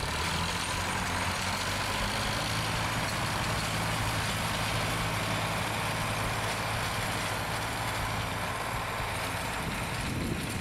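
A motor vehicle engine idling steadily, a low hum over a broad hiss, the hum fading near the end.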